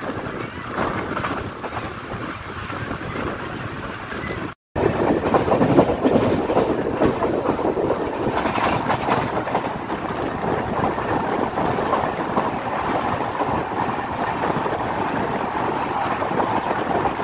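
Express passenger train running at speed, heard from a coach's open door: wheels clattering on the track under steady running noise. The sound cuts out for a moment about four and a half seconds in and returns louder.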